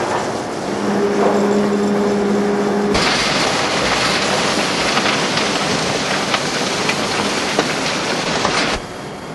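Coal-handling machinery: a steady motor drone over noisy rumble for the first three seconds, then an abrupt switch to a dense rushing clatter with scattered sharp ticks, which changes again abruptly near the end.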